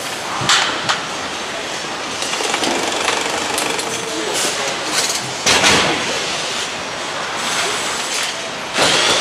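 Motorcycle assembly-line noise: a steady mechanical din with short bursts of air hissing from the line's pneumatic tools, about half a second in, the loudest around five and a half seconds, and again near the end.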